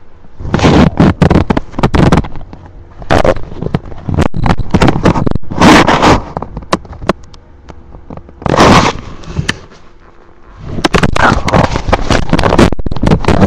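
A hungry stomach gurgling and rumbling, coming in several loud bouts of crackling and popping with short quieter gaps between them.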